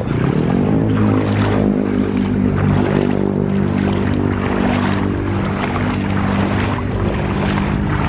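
An engine running near the camera at a low, even pitch: its pitch rises out of a dip at the start, then holds steady. Over it comes a rhythmic splashing of someone wading through floodwater.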